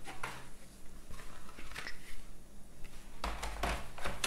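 Light clicks and rustling of board-game cards and cardboard pieces being handled and packed back into their box, with a louder bump of handling a little after three seconds.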